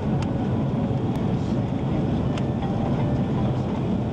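Steady, even cabin rumble of an Airbus A340-300 on final approach, heard from inside the passenger cabin, with a few faint ticks over it.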